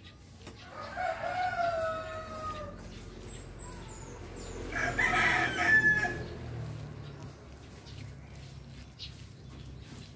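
A rooster crowing twice: a long falling crow in the first few seconds, then a second, louder crow about two seconds later.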